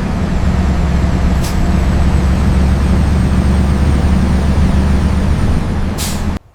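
A school bus engine running with a steady, heavy low rumble, cutting off suddenly near the end.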